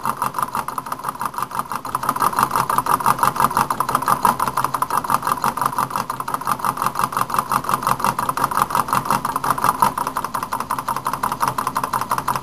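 Homemade alcohol-fired Stirling engine running, its crank and piston making a rapid, even clatter that swells and eases slightly as the speed drifts.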